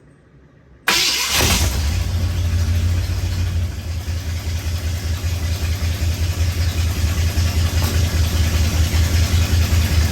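1966 Ford F100 pickup engine starting: it catches almost instantly about a second in with a short cranking burst, then settles into a loud, steady idle with a deep rumble. The exhaust leak the owner has just found is audible in the running engine.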